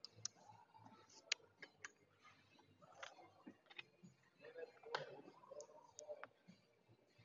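Faint, scattered sharp clicks of casino chips clacking on a gaming table, a few louder ones about a second in and about five seconds in.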